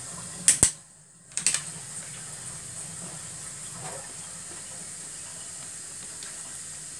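A stainless steel pot of chicken pieces boiling hard on a gas burner: a steady bubbling hiss. Two sharp clicks come near the start, with a moment of near silence between them.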